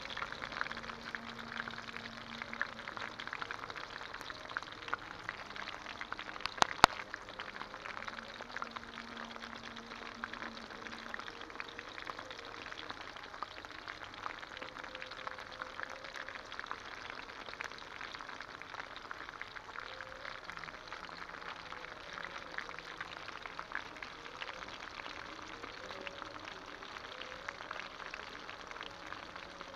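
Pork frying with chili, a steady crackling sizzle of many fine pops, with one sharp click about seven seconds in.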